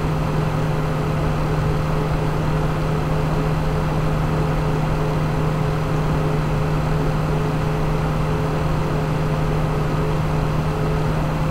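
A steady low hum under an even hiss, with two faint held tones above it and no change in level: constant background noise of the recording.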